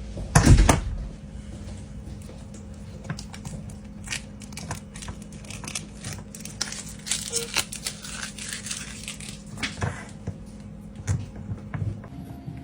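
Hands and small tools working on a smartphone during a repair: a knock about half a second in, then scattered small clicks, taps and crinkling, over a steady low hum.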